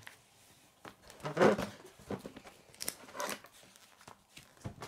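A paper LEGO instruction booklet being handled and flipped, rustling. The loudest rustle comes about a second and a half in, with a couple of smaller ones around three seconds.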